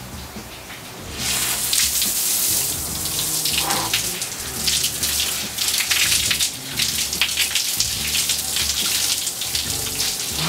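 Outdoor shower coming on about a second in, then a steady hiss of falling water spraying and splashing onto a person, rising and falling as he moves under the stream.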